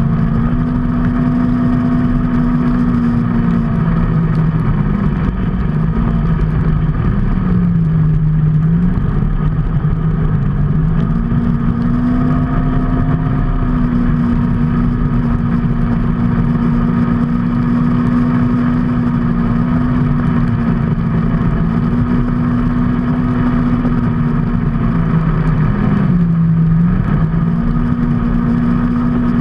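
A motor vehicle engine running steadily while under way, over a constant low rumble of road and wind noise. Its pitch drops twice, for a few seconds a little before the middle and briefly near the end, then climbs back as the engine speed picks up again.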